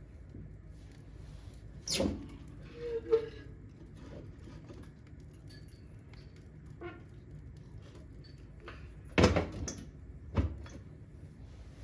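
A few sharp knocks and clunks, as of handling at a wood-burning stove, with a brief squeak about three seconds in.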